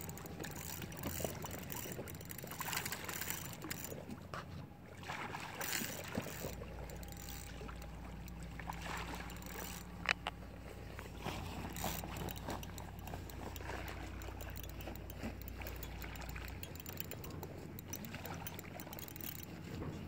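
A large hooked fish swirling and splashing at the lake surface as it is played in, with a low wind rumble on the microphone through the middle.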